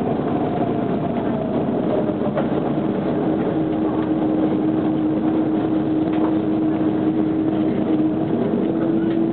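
Airbus A330 jet engines running at taxi power: a steady rumble with a held whine that steps up slightly in pitch a few seconds in.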